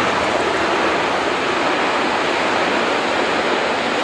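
Freight train of tank wagons rolling across a steel truss railway bridge: a steady rushing noise of wheels on rail.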